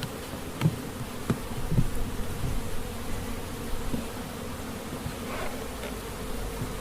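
Honeybees buzzing steadily as a hum over an open hive, with a handful of light knocks from hive parts being handled, mostly in the first two seconds.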